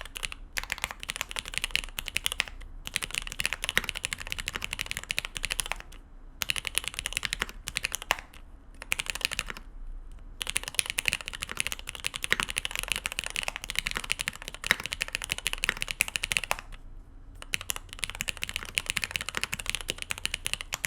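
Typing on a Mode Eighty mechanical keyboard with GMK doubleshot keycaps and SP-Star 80g switches lubed with Tribosys 3204. Dense, fast runs of keystrokes break off briefly about 6, 10 and 17 seconds in.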